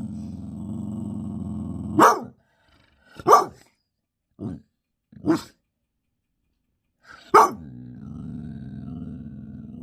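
A dog growling low and steadily, breaking into five sharp barks spaced a second or so apart, then settling back into a low growl near the end.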